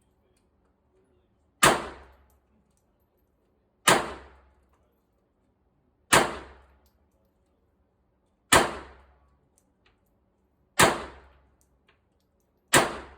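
Smith & Wesson M&P Bodyguard .380 pistol fired slowly, one shot at a time: six sharp shots about two seconds apart, each followed by a short ringing echo.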